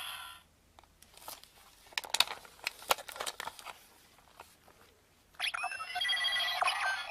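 Plastic clicks from the Zyuoh Changer Final toy being handled and its parts turned or pressed. About five and a half seconds in, a new electronic sound effect starts from the toy's small speaker, with steady beeping tones and gliding pitches.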